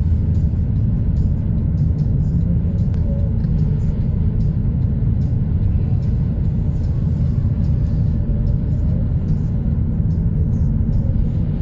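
Steady low rumble of a car's engine and tyres on the road, heard from inside the cabin while driving at a constant speed.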